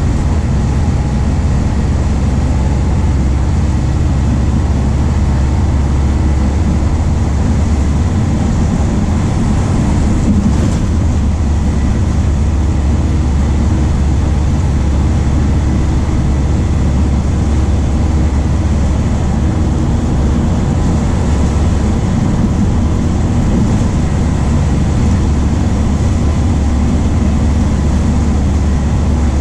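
MAN D0834 four-cylinder diesel of a VW 17.230 OD bus running steadily, with a deep low rumble and no revving, and a brief click about ten seconds in.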